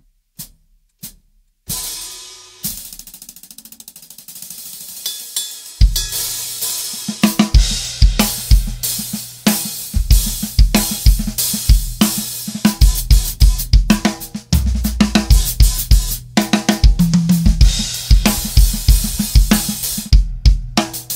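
Drum kit played on oversized hi-hats with an HCS cymbal as the top. A few single strokes open, then a washing, open hi-hat. About six seconds in, a full groove of bass drum, snare and hi-hat comes in and keeps going.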